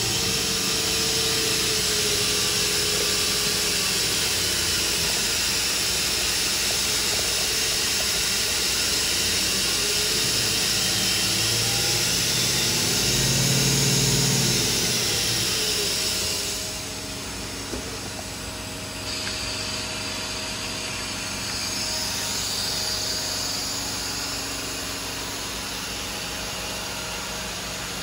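Hurco VMX50 vertical machining center's spindle spinning a face mill at high speed with no cut, a steady mechanical whine with a hissing rush of air. About two-thirds of the way through the sound drops to a quieter, steady machine hum.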